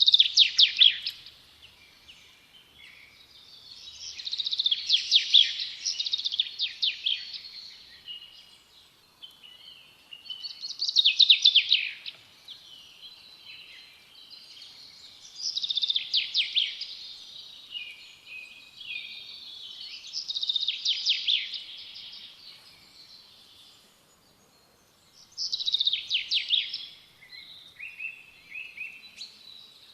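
A songbird singing. It repeats a song phrase of quick trilled notes, each lasting a second or two, about every five seconds, with softer chirps in between.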